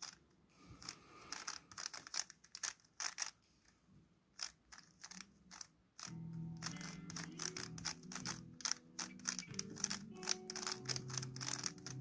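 3x3 Rubik's cube being turned fast by hand: quick, irregular plastic clicks and clacks as the layers snap round. Background music with low held notes comes in suddenly about halfway.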